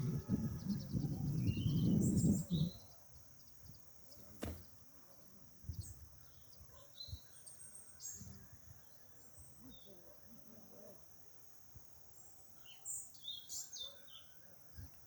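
Birds chirping in short scattered calls over a steady high hiss, with a low rumbling noise in the first couple of seconds and a single sharp click about four and a half seconds in.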